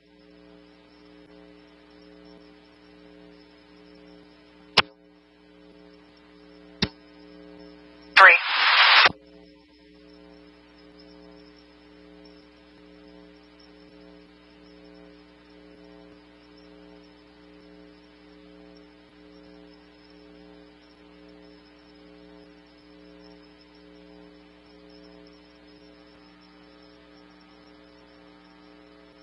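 Steady electrical hum on a police scanner radio feed between transmissions, with two sharp clicks about five and seven seconds in. Just after eight seconds comes a loud burst of radio noise lasting about a second.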